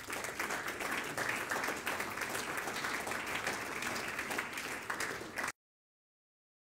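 Audience applauding, a dense patter of many hands clapping, cut off abruptly about five and a half seconds in.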